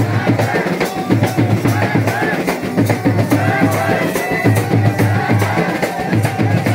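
Traditional Baduga dance music: drums beating a steady, repeating rhythm with a melody over it.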